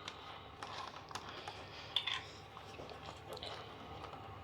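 Faint small clicks and short rustles of small objects being handled, with a slightly louder crackle about two seconds in.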